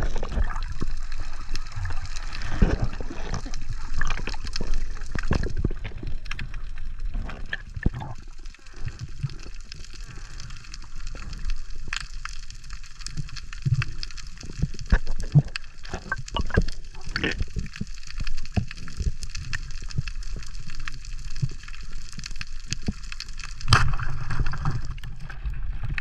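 Underwater sound picked up by a diver's camera: muffled sloshing and gurgling water with many scattered sharp clicks and knocks, and a faint steady high hum. A louder stretch of sound comes near the end.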